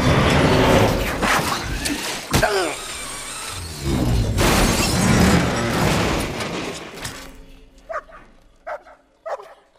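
Film action-scene sound effects: loud crashing, shattering noise in two surges, with a sharp bang about two and a half seconds in, dying away after about seven seconds and leaving a few short sharp sounds.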